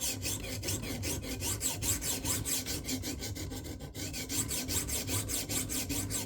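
Sharpening stone on a KME guided-rod sharpener stroked rapidly back and forth along the edge of a flexible stainless fillet knife, a fast run of rasping strokes with a brief break about four seconds in. The edge is being worked until a burr forms along it.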